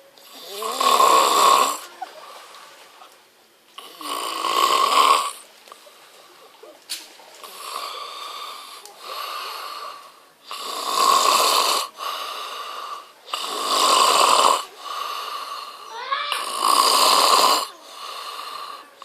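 Snoring in a steady rhythm, about six snores roughly three seconds apart, with quieter breaths between them.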